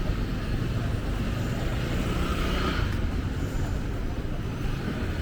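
Street traffic: a steady low rumble of vehicles, with a brighter swell of noise about two seconds in that fades about a second later, like a vehicle passing close by.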